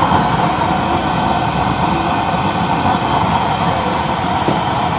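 Homemade used-oil burner stove running, a steady rushing noise that holds even throughout.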